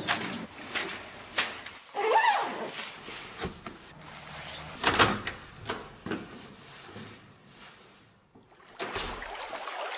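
Indoor handling sounds: a string of sharp clicks and knocks, with a short creak that rises and falls about two seconds in. It drops to near silence about eight seconds in.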